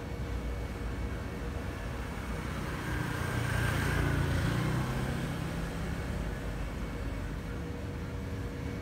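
Low engine rumble that swells about three seconds in and eases off again by about six seconds.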